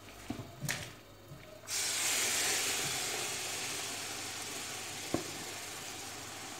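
A wooden spatula clicks the nuts against a steel pot. About a second and a half in, a sudden loud sizzle starts as sugar syrup is poured onto the hot roasting nuts, then slowly dies down.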